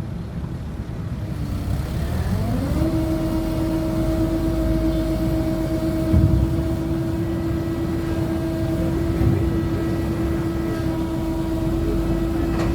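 CAT 307 amphibious excavator's diesel engine and hydraulics running at high revs with a steady whine. The pitch dips and climbs back in the first few seconds, then holds steady. Two brief thumps come about 6 and 9 seconds in.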